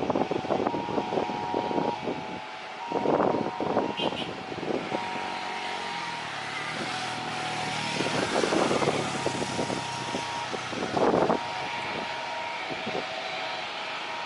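Road traffic passing close by, a continuous roar with louder surges as vehicles go past, about three seconds in, around eight seconds and around eleven seconds, over a steady high whine.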